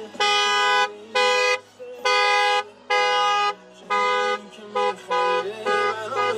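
Car horn honking over and over, about eight steady blasts of half a second or so each, some shorter, with short gaps between them.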